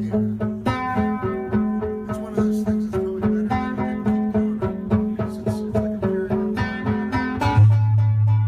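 Guitar picked in a fast run of short single notes over a steady low drone. About seven and a half seconds in, the picking stops and the low drone swells louder.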